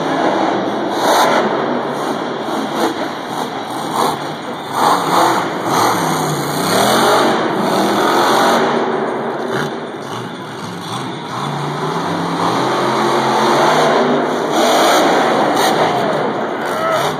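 Max D (Maximum Destruction) monster truck's engine revving hard, its pitch rising and falling repeatedly as it is driven through a freestyle run.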